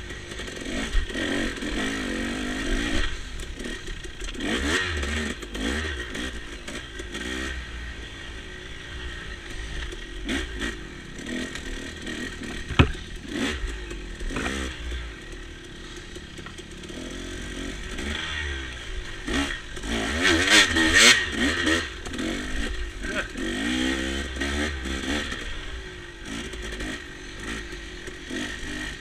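Dirt bike engine revving up and down repeatedly as it is ridden along a rough woodland trail, with clatter from the bike over the ground and a sharp knock about 13 seconds in.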